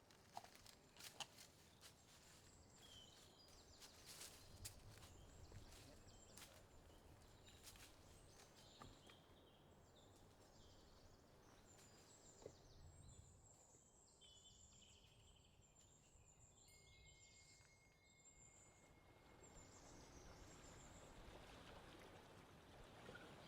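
Near silence: faint outdoor ambience with scattered faint high chirps and a few soft ticks in the first few seconds.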